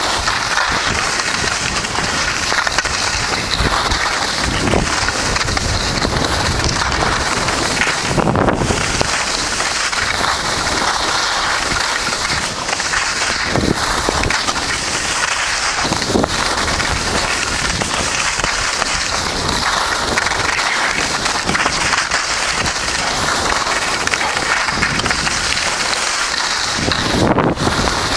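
Steady, loud rush of wind noise on the microphone mixed with the scrape of sliding over packed snow during a downhill run.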